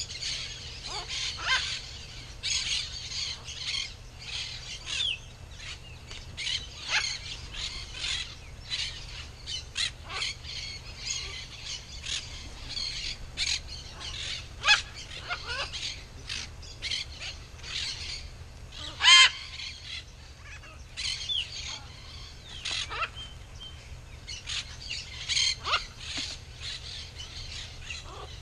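Red-and-green macaws and other birds calling: a steady stream of short chirps and squawks, with one loud call about two-thirds of the way through.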